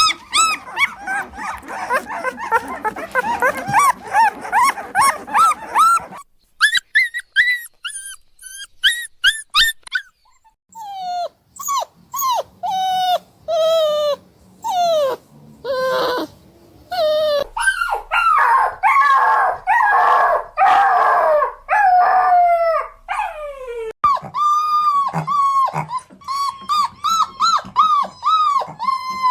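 Puppy crying and whimpering: many short, high whines in quick succession, many of them falling in pitch, with stretches where the cries crowd together.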